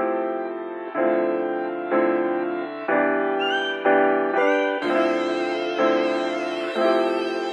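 Background music: sustained chords changing on a steady beat about once a second, with brighter high notes coming in about five seconds in.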